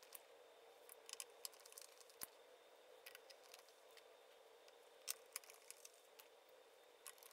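Near silence with scattered faint clicks of small metal screws and a screwdriver being handled as the screws are fitted into a hoverboard's plate.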